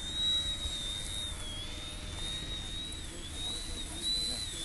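The electric motor and propeller of a 200-gram Yak-55M RC aerobatic model whine at a high pitch. The pitch dips and recovers about three times as the throttle is worked through 3D manoeuvres, and it climbs slightly near the end.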